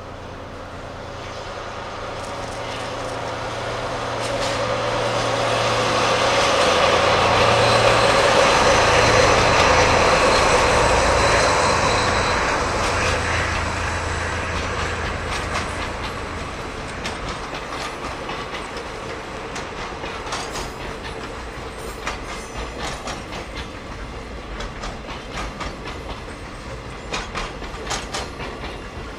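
Two DD51 twin-engined diesel-hydraulic locomotives working in tandem pass with their engines running, growing louder and loudest about ten seconds in, then fading. A long train of container wagons follows, its wheels clicking rhythmically over the rail joints.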